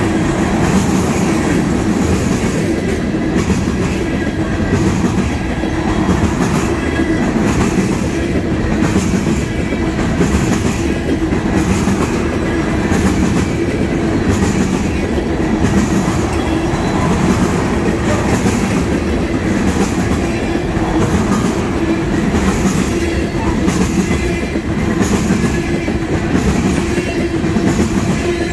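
Tank cars of a freight oil train rolling past at speed: a steady rumble of steel wheels on rail with a regular clickety-clack as the wheels cross rail joints.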